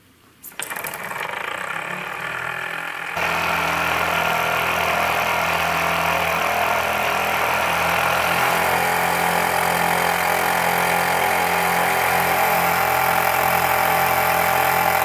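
Hobbies Bowman Superheated Peggy model steam engine running: a steady hiss of steam with a fast, even beat, starting after a click about half a second in and getting louder about three seconds in. It is running well after its squashed steam pipe was repaired with new copper.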